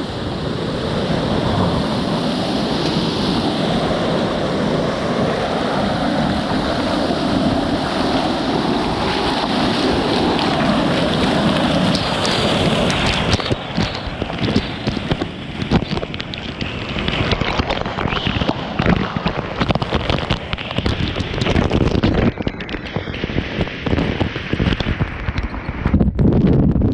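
Steady rush of a waterfall. About halfway through it turns choppy, broken up by wind buffeting the microphone.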